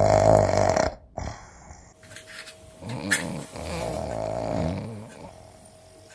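A person snoring, several rasping snores in a row; the first, in the opening second, is the loudest, and quieter ones follow from about two seconds in.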